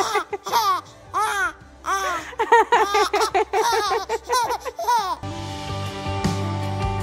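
Baby girl laughing in a string of high, arching squeals and giggles, with her mother laughing along. About five seconds in the laughter stops and music begins.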